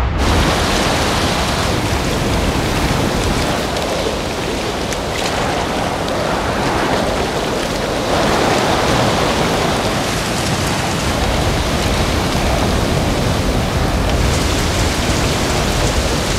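Heavy rain in a downpour, a loud steady hiss that starts suddenly.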